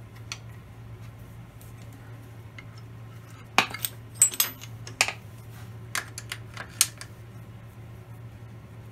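Steel clamps and hand tools clinking and knocking against the cast-iron milling machine table as they are handled: about half a dozen sharp metallic clinks between about three and a half and seven seconds in, one with a brief ring. Under them runs a steady low hum.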